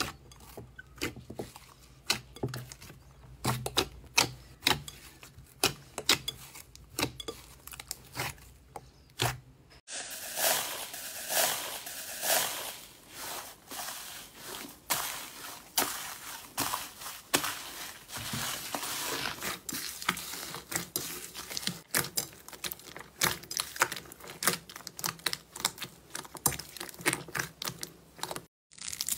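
Hands squeezing and kneading slime in a glass bowl: first a soft, glossy slime giving off scattered wet pops and clicks, then, from about ten seconds in, a slime packed with small foam beads giving a dense, continuous crunching crackle.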